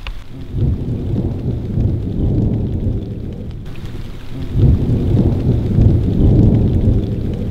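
Wind buffeting the microphone: a deep, choppy rumble that swells twice.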